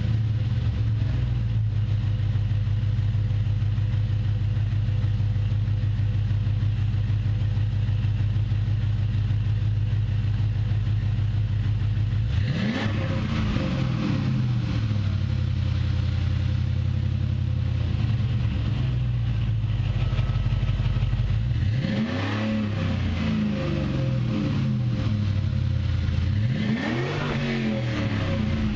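A 2004 Jeep Grand Cherokee's 4.7-litre V8 running through a Flowmaster 50 HD muffler and 3-inch exhaust: idling steadily, then revved three times, once about halfway through and twice near the end, each rev rising and falling in pitch.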